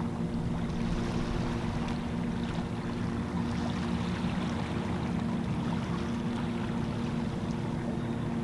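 Small boat's outboard motor running steadily, a low even drone over a background hiss.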